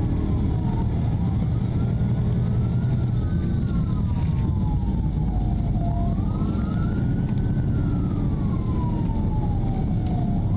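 Police patrol car siren wailing, rising and falling slowly about every four seconds, over the car's steady low road rumble.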